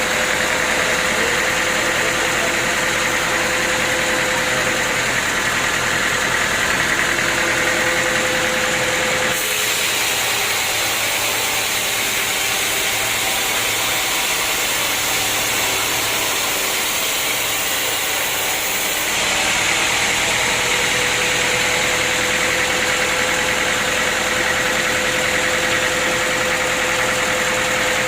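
Sawmill machinery running steadily with an engine-like drone and a constant whine. The sound changes character abruptly about a third of the way through, then switches back about two-thirds of the way through.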